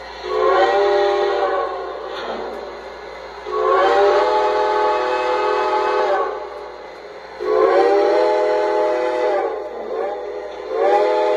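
O gauge model steam locomotive's sound system blowing its multi-chime steam whistle in four long blasts, the last still sounding at the end, with the train's running noise between blasts.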